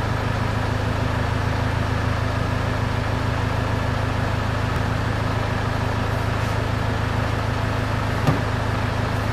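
Land Rover Discovery's engine idling, a steady low hum heard from inside the cabin, with a single sharp click about eight seconds in.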